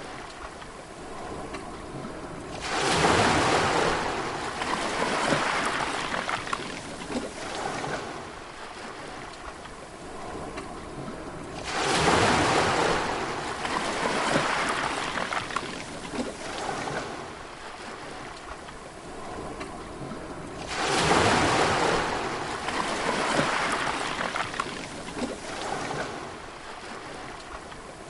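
Sea waves breaking, three times about nine seconds apart: each comes in as a sudden loud wash of surf that fades away over several seconds, and another wave begins to break at the very end.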